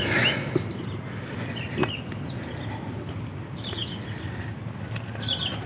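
Small birds chirping now and then in the fields, over a low outdoor rumble, with a rustle at the start and a couple of sharp knocks of handling in soil.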